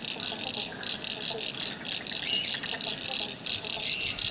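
Frogs calling in a dense chorus of rapid, high-pitched pulsing calls, with fainter lower calls among them and a short bird chirp about two seconds in.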